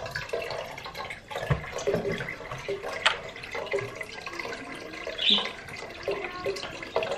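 Water poured from a plastic jug into a pot of rice on the stove, a steady splashing stream, with a few light knocks.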